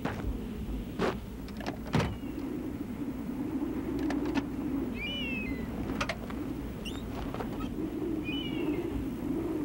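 Scattered clicks and knocks of someone handling the front of a parked car, over a steady low hum, with a few short high chirps every few seconds.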